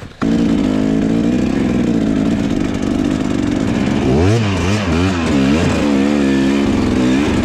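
Husqvarna dirt bike engine fires up suddenly and runs at a steady speed. From about halfway it revs up and down repeatedly as the bike is ridden off.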